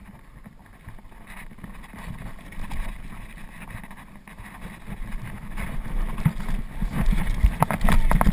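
Mountain bike riding down a dirt ridge trail: wind rumbling on the camera microphone and tyres rolling over loose dirt, getting louder as the bike picks up speed, with several sharp knocks and rattles near the end.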